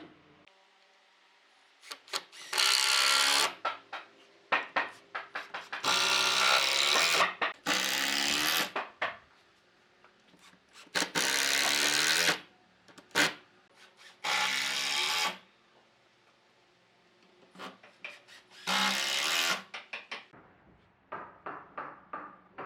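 Power drill running in about six short bursts of a second or so each, its motor pitch steady through each run. Light clicks and knocks fall between the bursts.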